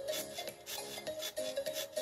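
Background music with a simple stepping melody, overlaid by short rasping swishes about three times a second.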